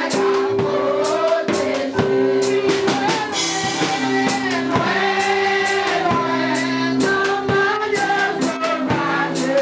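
Women singing a gospel hymn into microphones over an instrumental accompaniment with a steady drum beat about twice a second.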